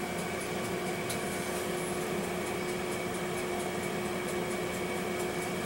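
Steady mechanical hum of a running appliance, with a low tone and a higher tone held constant and faint, fast, regular high ticking; the brushing of resin onto the clay is not heard apart from it.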